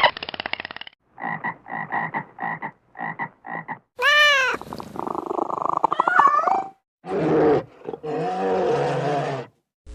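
A string of different animal calls: about seven short calls repeated in quick succession, then a loud call that rises and falls about four seconds in, followed by further, lower calls.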